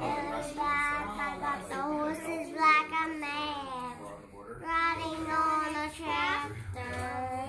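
A young child singing, the pitch bending up and down through each phrase, with a short break about four seconds in.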